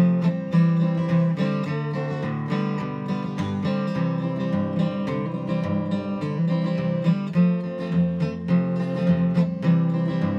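Solo acoustic guitar playing an instrumental break between verses of a country song: strummed chords in a steady, even rhythm, with no singing.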